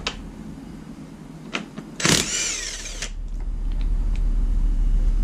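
Cordless impact wrench spinning the crankshaft bolt of a Jeep 4.0 inline-six's harmonic balancer in a short run of about a second, its motor whine rising and falling. A steady low hum follows and grows slightly louder.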